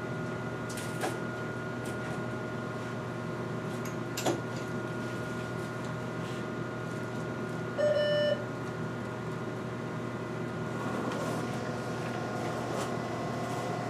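Steady electrical hum of imaging-room equipment, with a couple of faint clicks and one short electronic beep about eight seconds in.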